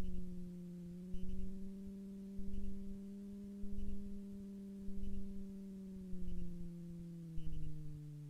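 Super Petrel amphibian's engine droning steadily in the cockpit at low power, its pitch sagging a little near the end. A low thump comes about once a second over the drone.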